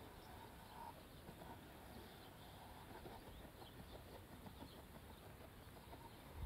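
Near silence: faint outdoor background with a few faint, short, high chirps and small ticks.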